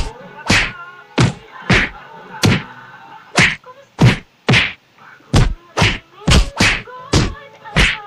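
Punch and whack sound effects dubbed over kittens play-fighting. There are about fourteen sharp hits, roughly two a second and unevenly spaced, over a faint wavering tone.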